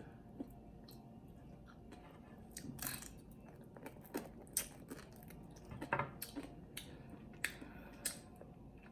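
A person chewing food close to the microphone: scattered wet clicks and smacks of the mouth, a few louder ones through the middle.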